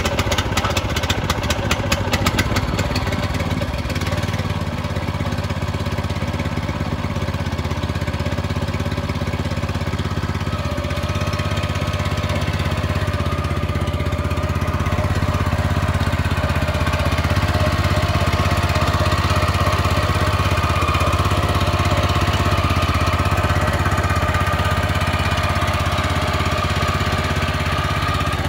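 The 8.5-horsepower engine of a Shindaiwa CSE80-DW4R self-propelled chipper-shredder running continuously, choppier and louder for the first few seconds and then steady. Near the end the machine is shredding, with chips spraying out of the discharge.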